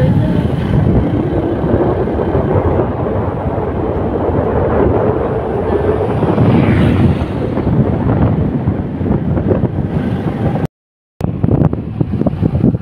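Wind buffeting the microphone over the running noise of a vehicle on the road, steady and heavy in the low end. The sound cuts out for about half a second near eleven seconds in, then carries on rougher and more gusty.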